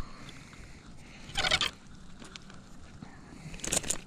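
A hooked bass splashing at the water's surface in two short bursts, about a second and a half in and again near the end, as it is reeled in and swung out of the water.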